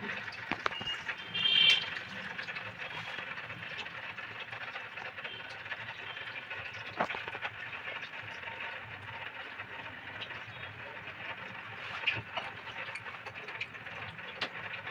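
Hands working a small plastic plumbing fitting onto a water pipe: scattered small clicks and knocks over a steady hiss, with a brief squeak about a second and a half in.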